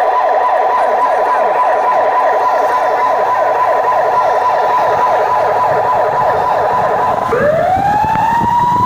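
Vehicle siren sounding close by in a fast repeating yelp. About seven seconds in it switches to a slow rising wail.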